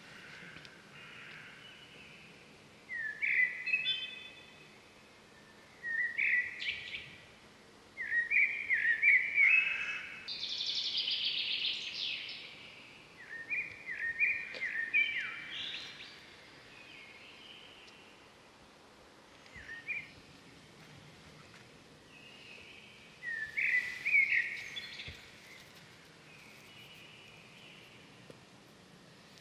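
Vultures squabbling over a carcass, giving short bouts of high, harsh, broken squealing calls separated by pauses of a few seconds, the longest and loudest bout about eight to twelve seconds in.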